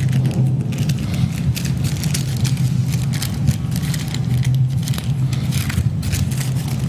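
A steady low hum, with light clicks scattered over it.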